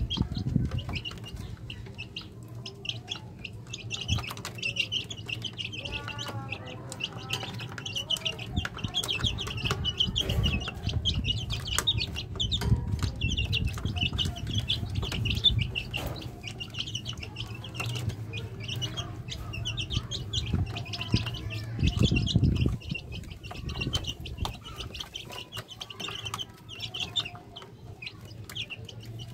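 A group of native chicken chicks peeping continuously in shrill, rapid chirps, with scattered light knocks and flutters. A low steady hum runs underneath.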